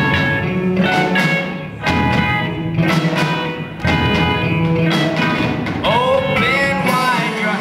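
Rock band playing live, guitar-led, with a voice singing in the latter part.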